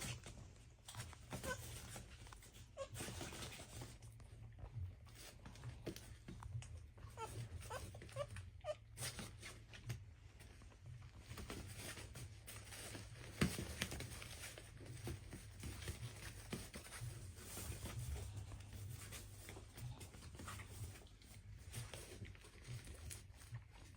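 Goats moving and feeding: faint rustling, crunching and scattered clicks, with a few brief high blips, over a steady low rumble.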